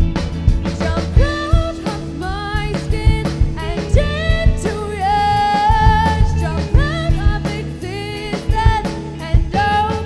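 Indie pop band playing live: a singer's melody with sliding notes over drum kit, steady bass notes and guitar.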